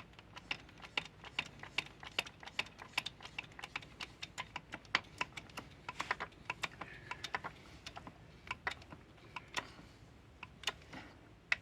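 Crimping tool being worked on a 300 sq mm cable lug: a run of sharp, irregular clicks, several a second.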